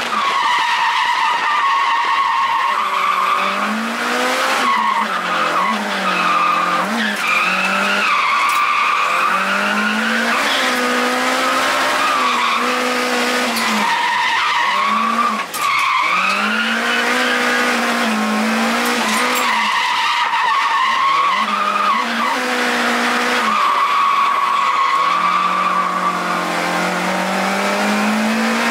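Toyota AE86's dry-sump 4A-G four-cylinder engine on FCR41 carburettors, heard from inside the cabin, revving hard with the revs rising and falling again and again, and a brief lift about halfway through. Tyres skid and squeal under it as the car drifts.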